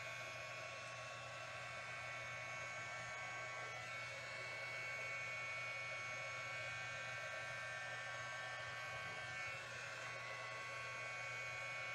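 Handheld blow dryer running steadily: a rush of air with a constant motor whine. The loudness dips briefly about nine and a half seconds in.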